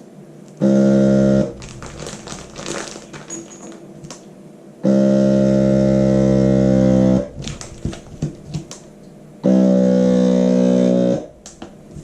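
Vacuum food sealer's motor running in three bursts: briefly, then for about two and a half seconds, then for under two seconds near the end. It is a steady electric buzz that starts and stops sharply. Plastic bag rustling and small clicks come between the bursts.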